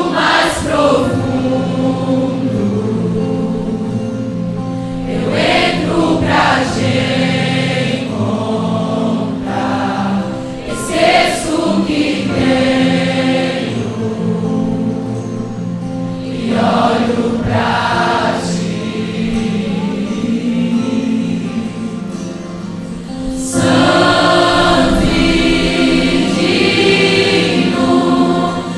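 A choir singing a Christian gospel worship song, with sustained held notes and phrases that swell every few seconds; it grows louder for the last few seconds.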